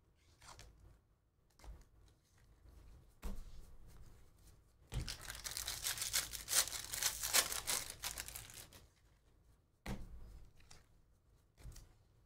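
A 2019 Bowman Draft Jumbo foil card pack being torn open, its wrapper crackling and crinkling for about four seconds in the middle. Light clicks of a stack of trading cards being handled come before and after.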